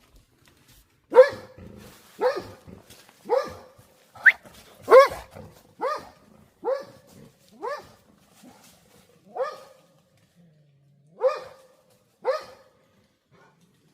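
A dog barking: about eleven single barks, roughly one a second, with a longer pause shortly before the last two.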